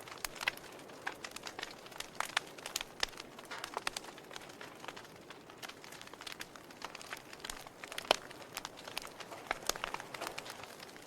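Wood fire burning in a fireplace, crackling with many irregular sharp pops over a faint hiss; the loudest pop comes about eight seconds in.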